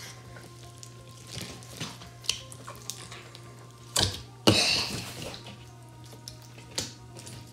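A large mass of mixed slime squeezed and kneaded by hand, giving scattered wet squelches and sticky pops; the loudest, longest squelch comes about four and a half seconds in.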